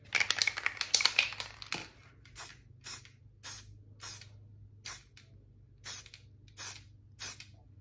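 Can of Montana Gold brick-red spray paint: a dense stretch of hiss and clicks for the first two seconds, then short spray bursts repeated about every half second to second.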